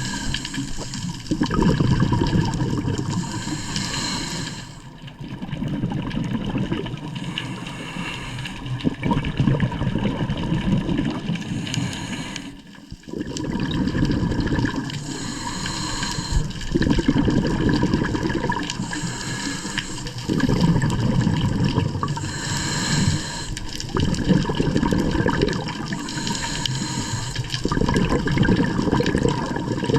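Water rushing and churning in surges every few seconds, with a faint steady hum underneath.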